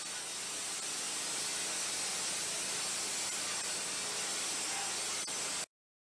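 Wet sandblasting kit on a 4000 psi pressure washer blasting a jet of sand and water against a truck cab's sheet metal: a steady hiss that cuts off suddenly near the end.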